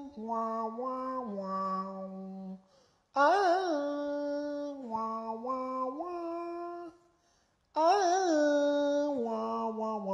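A man's voice singing a slow, wailing phrase that opens on a wavering note and steps down to a long held low note; the same phrase comes three times with short breaks between.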